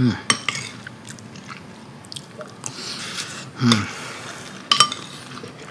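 A person chewing a mouthful of rice and fried egg mixed with hot chocolate, with wet mouth clicks. Two brief low 'mm' hums, one at the start and one about halfway through.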